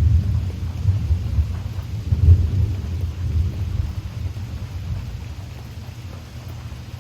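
A thunderclap rolling as a deep rumble, loudest about two seconds in and dying away toward the end, over steady rain.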